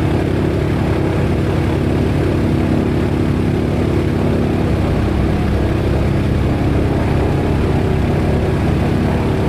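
B-17 bomber's Wright R-1820 Cyclone nine-cylinder radial engines running with propellers turning, heard loud and steady from inside the fuselage. The low drone strengthens slightly about halfway through.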